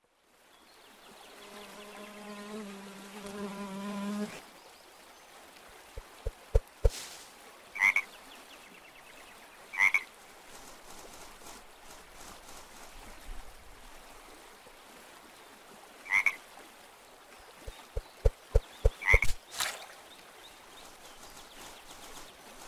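Cartoon frog croaking: one long croak that swells for about three seconds, then a few short sharp calls spread out, with quick runs of soft thumps between them over a faint forest background.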